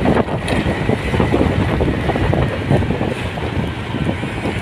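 Wind buffeting the microphone over the steady rumble of a moving vehicle's engine and tyres.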